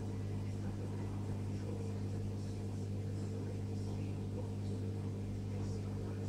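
Steady low electric hum of a reef aquarium's pump equipment, unchanging throughout.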